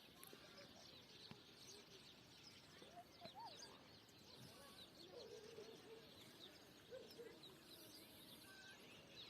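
Faint birdsong over near silence: many small, scattered chirps from birds.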